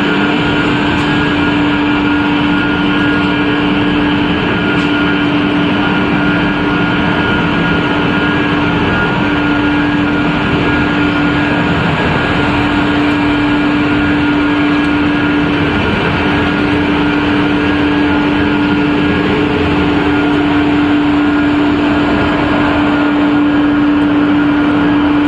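Sawdust pellet production line machinery running steadily: a loud, even mechanical noise with a constant low hum.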